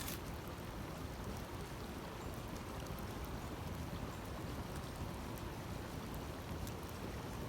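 Steady rushing outdoor noise with faint scattered ticks.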